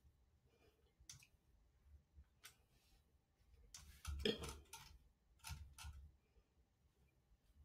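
Near silence with a few soft clicks of a computer mouse, several close together about four seconds in.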